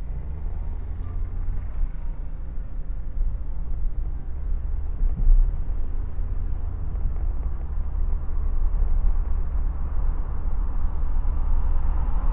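Steady low rumble of a car's engine and road noise heard from inside the moving car's cabin, with no voices. The sound grows a little louder near the end.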